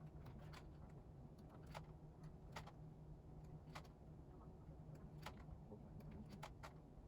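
Faint, irregular clicks and light taps, about ten of them, from K-pop album packaging, plastic sleeves and photocards being handled and opened, over a low steady hum.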